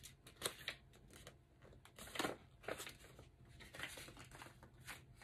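Paper instruction booklet and card being handled and set down: a series of brief, faint rustles, the loudest about two seconds in.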